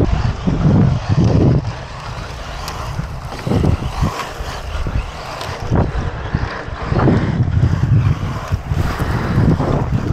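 Wind buffeting the microphone: a loud, uneven low rumble that swells and drops every second or so.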